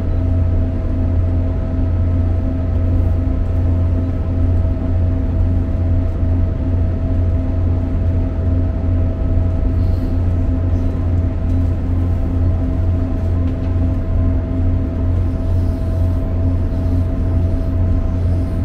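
Inside a GWR Turbo diesel multiple unit running at speed: a steady low rumble from the wheels on the track and the underfloor running gear, with a faint steady whine on top.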